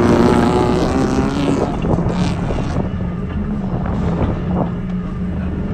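Folkrace car's engine running at low speed, heard from inside the stripped cabin: a steady drone whose pitch wavers briefly at first and then holds.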